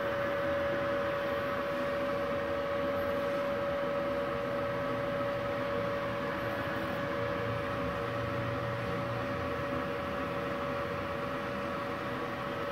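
Multipro MIG-MAG 200G-SP inverter welding machine switched on and idling, not welding: a steady hum with one clear high tone running through it.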